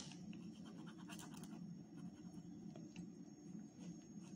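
Faint scratching of a pencil drawing on folded paper, with light scattered ticks and rustles, over a low steady background hum.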